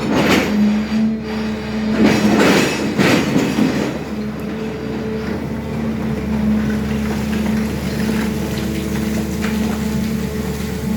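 SANY excavator running steadily with a droning hum, with harsh scraping bursts at the start and again about two to three and a half seconds in.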